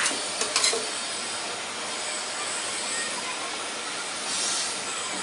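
Milk tea boiling hard and sizzling in a saucepan around a red-hot, fire-blackened clay bowl, a steady hiss of bubbling and steam, with a few small clicks about half a second in.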